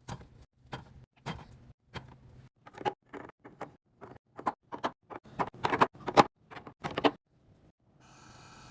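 Containers and groceries being handled and set down while restocking a pantry or fridge: a run of uneven light clicks and knocks, loudest a little after the middle, with a brief hiss near the end.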